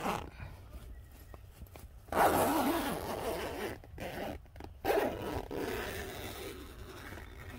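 Tent door zipper being unzipped from inside in two long pulls, the second about a second after the first ends.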